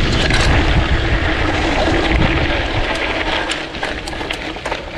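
Wind buffeting the microphone of a handlebar-mounted action camera as a mountain bike rolls down a rocky dirt trail, a low rumble that eases after about three seconds. Tyres on loose dirt and stones, with sharp clicks and rattles from the bike that come more often in the second half.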